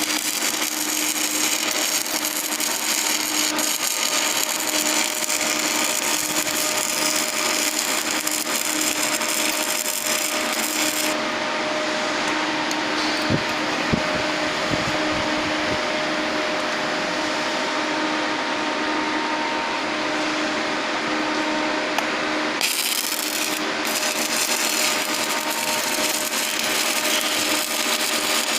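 Welding on a pipe: a steady, continuous hiss with a faint low hum underneath.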